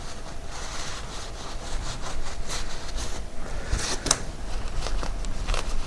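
Scrubbing and rubbing strokes on a motorcycle's swinging arm as it is cleaned, with a sharp click about four seconds in.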